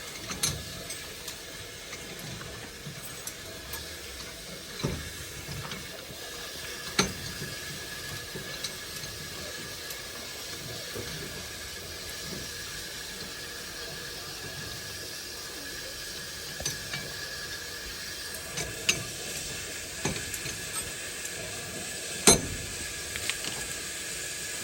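Steady hiss from a standing steam locomotive, broken by scattered sharp metallic knocks and clinks, the loudest about 22 seconds in.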